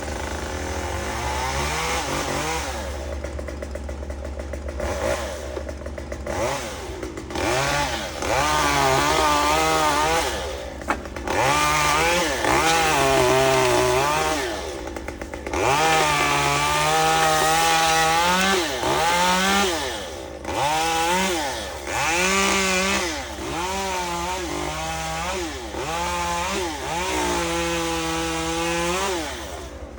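Chainsaw engine revving up and down over and over, each burst climbing in pitch, holding for a second or two, then falling back.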